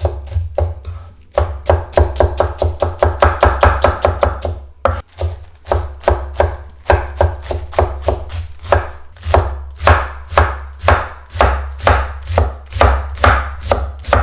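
Kitchen knife rapidly chopping romaine lettuce on a wooden cutting board: quick, even knocks of the blade through the leaves onto the board, with a brief pause about five seconds in before the chopping picks up again at a slightly slower pace.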